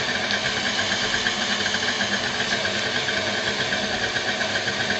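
KitchenAid tilt-head stand mixer running steadily, its beater churning cake batter in a stainless steel bowl.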